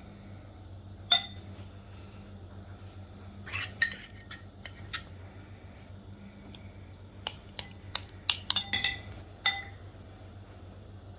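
Cutlery clinking against dishes: a sharp ringing clink about a second in, then two clusters of quick clinks, one around four seconds in and one around eight to nine seconds in, over a steady low hum.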